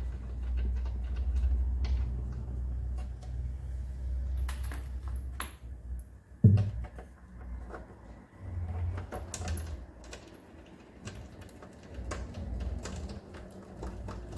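Workbench handling noise: scattered clicks and knocks of tools and parts, over a low rumble that stops about six seconds in. A single loud, dull thump comes about six and a half seconds in.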